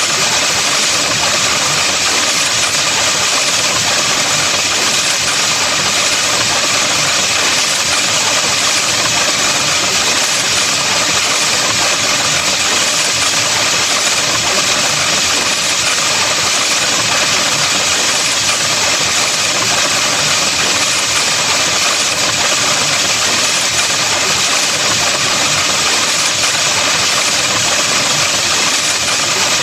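Steady, unchanging harsh buzzing noise: an electronic sound effect that stays the same throughout.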